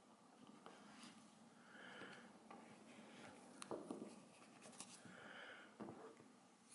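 Near silence: faint rubbing and a few light clicks of a plastic squeegee being worked over vinyl wrap film, with soft breaths twice.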